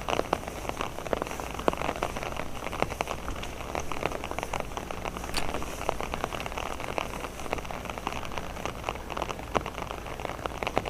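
Steady rain, with many irregular sharp ticks of drops landing close by.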